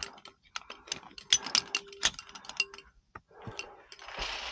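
Via ferrata carabiners clicking and clinking against the steel safety cable and each other: a quick, irregular run of sharp metallic clicks over the first three seconds, with a few more after.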